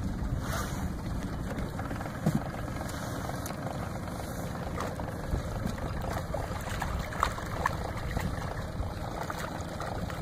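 Steady low rumble of wind on the microphone and a small boat's outboard motor running in gear, with scattered light ticks and splashes as a hooked fish thrashes at the surface beside the boat.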